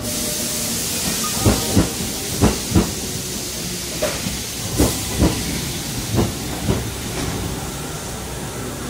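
Kintetsu train pulling in slowly: a steady hiss with paired clacks as wheelsets cross a rail joint. The pairs come a little further apart each time as the train slows, and they die away after about seven seconds.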